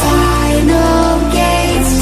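Background music: electronic music with sustained pitched notes and a steady bass line that changes note near the end.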